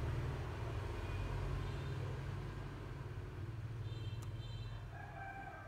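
Steady low background rumble, like distant traffic, with a few faint short tones near the end.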